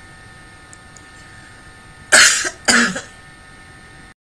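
A woman coughing twice in quick succession, about two seconds in.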